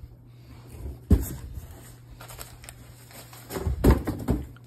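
Handling bumps and knocks: a sharp knock about a second in and a quick run of thumps and knocks near the end, over a low steady hum.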